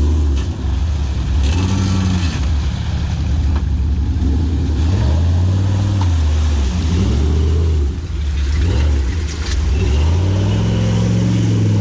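Off-road vehicle's engine revving up and down several times under load, with a few short knocks.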